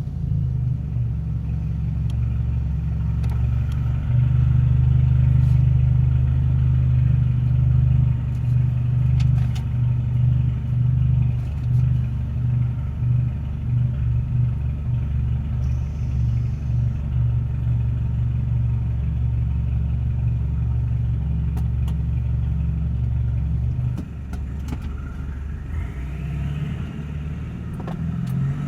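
BMW F30 328i's N20 turbocharged four-cylinder engine, fitted with an aftermarket open intake, driving with a steady low drone. The drone eases off for a moment about four-fifths of the way through, then a rising whine follows as it pulls again.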